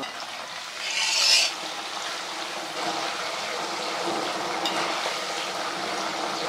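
Raw banana slices deep-frying in hot sunflower oil in an iron kadai, the oil sizzling and foaming hard because salt water has just been added, while a perforated metal ladle stirs the chips. A louder surge of sizzling comes about a second in, then it settles to a steady sizzle.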